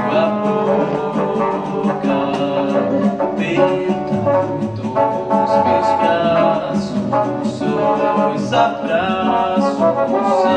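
Live chamber ensemble playing an instrumental passage of a samba, with plucked guitar, strings and light percussion over a steady beat.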